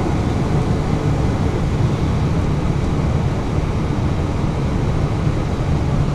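Steady noise inside an Airbus A320 cockpit while the airliner taxis: a constant low rumble of the engines at idle with airflow hiss, unchanging throughout.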